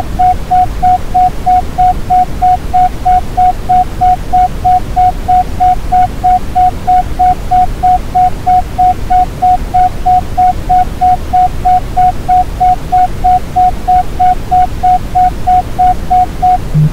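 Synthesised isochronic tone: a single mid-pitched beep pulsing on and off about three times a second (a 3.14 Hz pulse rate), over a steady bed of Brownian noise. The pulsing tone cuts off near the end while the noise continues.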